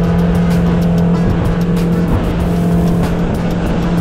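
Electronic dance music with a steady, even beat over a held low bass note.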